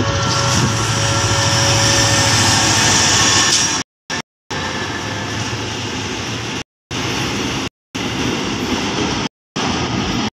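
Thai freight train led by a CSR diesel-electric locomotive passing: the locomotive's engine gives a steady low drone as it approaches, then the container wagons roll past with a broader rushing rumble of wheels on rail. From about four seconds in, the sound cuts out completely for short moments several times.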